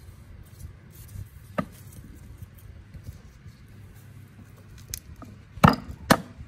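A few sharp knocks: a light one about a second and a half in, then two loud ones half a second apart near the end.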